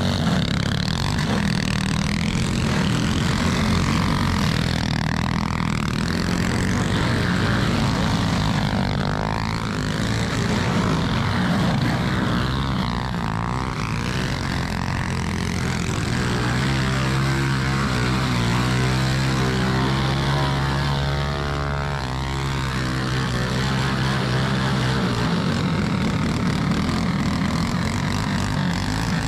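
Several mini bike engines running together, their pitch rising and falling as they rev and ease off, with a steadier, stronger drone for several seconds past the middle.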